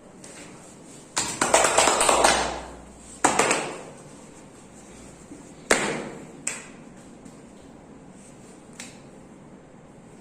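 Hands slapping skin during a massage: a quick run of sharp slaps for about two seconds, then a few single slaps spaced out over the following seconds.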